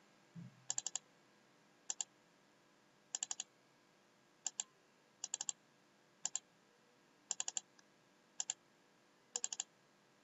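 Faint computer mouse clicks in quick clusters of two to four, about one cluster every second, as lines are drawn point by point on screen.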